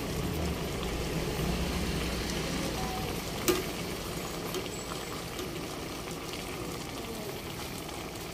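Galunggong (round scad) adobo simmering in an uncovered pot, the vinegar-soy sauce bubbling and sizzling steadily. About three and a half seconds in, a single sharp clink of a metal ladle against the pot.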